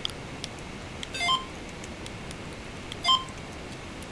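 Short electronic chirping beeps, twice about two seconds apart, each a quick cluster of several tones. Faint clicks are scattered between them.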